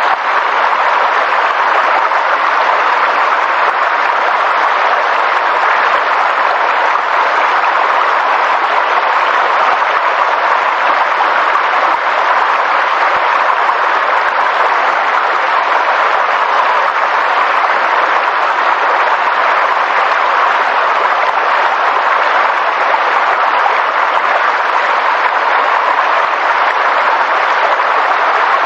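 Steady, unbroken rushing of water, with no pitch and no breaks.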